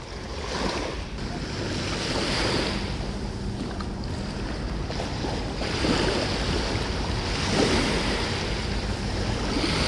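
Small waves washing up onto a sandy beach in a rushing wash that swells and fades several times, with wind buffeting the microphone.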